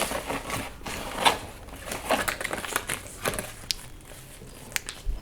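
A plastic LEGO parts bag crinkling and rustling as it is handled, with small irregular crackles.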